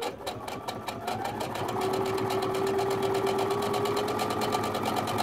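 Baby Lock Soprano sewing machine stitching through a folded fabric strap: a motor whine with rapid, even needle ticking, about ten stitches a second. It speeds up over the first second or two, runs steadily, then stops abruptly at the end.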